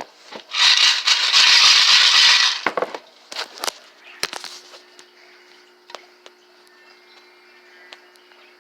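Coins rattling inside a coin bank as it is shaken for about two seconds, followed by a few separate clinks, then a faint steady hum.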